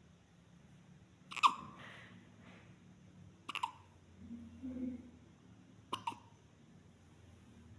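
A premature newborn baby girl hiccuping: three short, sharp hiccups about two seconds apart.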